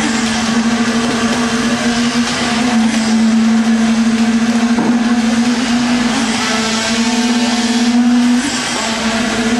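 A running engine makes a loud, steady drone that holds one pitch, with brief dips about five seconds in and again around eight and a half seconds.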